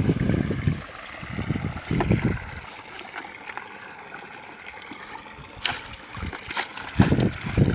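Dip net being worked through shallow ditch water and grass: splashing and rustling, with wind buffeting the microphone at the start and a few sharp knocks near the end as the net comes to a plastic bucket of fish.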